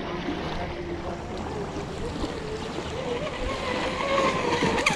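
Radio-controlled Pro Boat Blackjack 42 catamaran running out on the lake, the whine of its electric motor rising in pitch about three seconds in, over wind and small waves lapping the shore. A sharp click just before the end.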